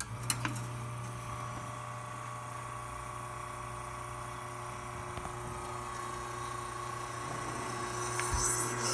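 Alex Duetto espresso machine's pump switching on and running with a steady hum while a test shot is brewed through the freshly overhauled E61 group, a hiss joining near the end.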